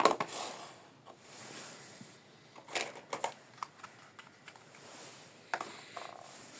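Small plastic toy kitchen pieces being handled: a sharp knock at the start, then scattered clicks and taps with soft rustling between them.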